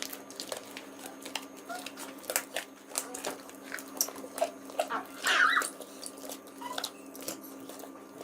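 Slime being squeezed and worked by hand, giving many short sticky clicks and pops, with one louder squeaky squelch about five seconds in.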